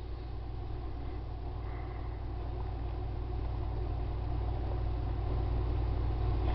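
Steady low engine rumble of a vehicle running nearby, slowly growing louder.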